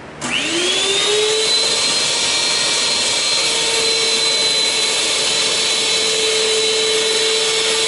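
Electric stand mixer switched on, its motor spinning up over about a second to a steady high whine, then starting to wind down at the very end. It is beating heavy whipping cream that is being churned into butter.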